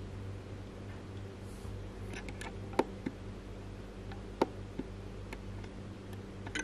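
A few irregularly spaced sharp clicks over a steady low hum. The loudest clicks come about three seconds in and again a second and a half later.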